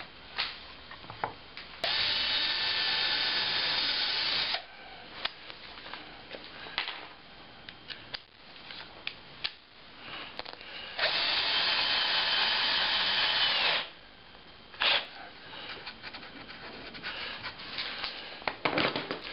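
Cordless drill driving screws into a plywood jig: two runs of about two and a half seconds each, one a couple of seconds in and one around the middle, then a short burst soon after. Small knocks and clicks of handling fall between them.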